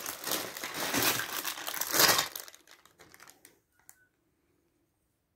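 Clear plastic bags of LEGO DUPLO bricks crinkling as they are handled for about two seconds, followed by a few faint clicks and then near quiet.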